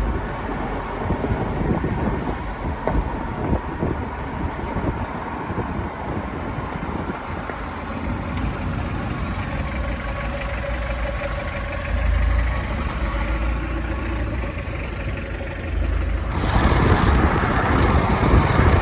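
Hindustan Contessa Classic's diesel engine running steadily as the car is driven slowly, with a low rumble. About three-quarters of the way through, a louder rushing noise joins it.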